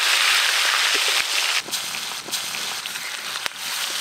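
Pieces of hilsa fish sizzling as they fry in hot mustard oil in an aluminium wok, a steady hiss that eases slightly about a second and a half in, with a few light clicks.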